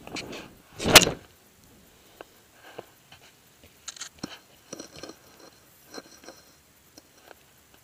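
Golf driver swinging through: a brief rush of air over the microphone of a camera mounted on the club's shaft about a second in, the loudest sound. Scattered light clicks and knocks follow as the club is set down behind a teed ball.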